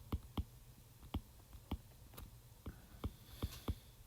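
Faint light clicks and taps, irregular at roughly two a second, with a brief soft scratch about three and a half seconds in.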